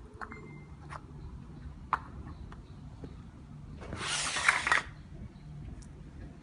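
Slime being pressed and worked by hand, giving scattered small clicks and pops, with a loud crackling burst just under a second long about four seconds in.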